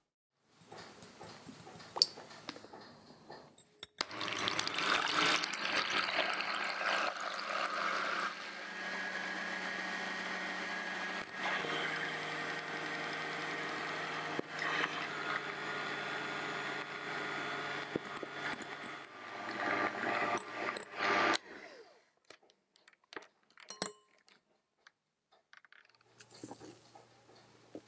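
An electric hand mixer runs steadily, its wire beaters whipping egg whites and sugar to a stiff meringue in a glass bowl. It starts about four seconds in and stops about seventeen seconds later, followed by a few faint clicks.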